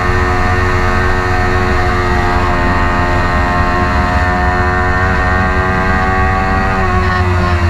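Kawasaki Ninja 400 race bike's parallel-twin engine held at high revs under full throttle, its pitch climbing slowly as it pulls along a straight, with heavy wind rush on the onboard microphone.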